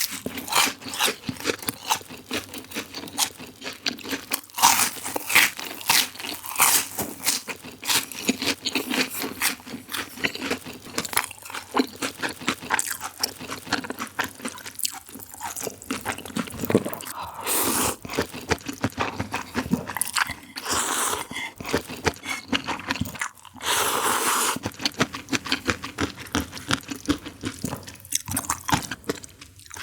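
Close-miked eating: crisp crunching bites and chewing, many irregular clicks and crackles, with a few longer, louder bursts of noise in the second half.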